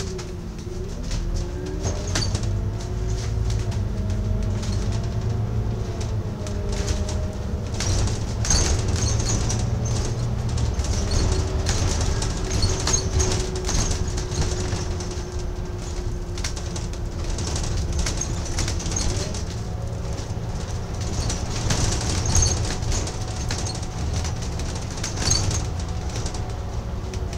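Inside a moving double-decker bus: low engine and drivetrain rumble, with a whine that rises and falls as the bus gathers and loses speed, and the bodywork and windows rattling over the road.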